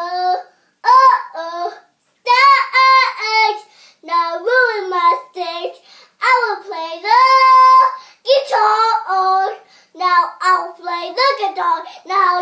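A young girl singing a rhythmic, made-up chant in a high voice, in short phrases with brief pauses and one longer held note past the middle.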